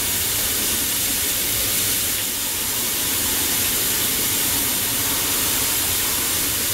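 Steady hiss of compressed air rushing out of a Longevity Forcecut 40D plasma cutter's torch: the long post-purge air flow that keeps running after the trigger is let go.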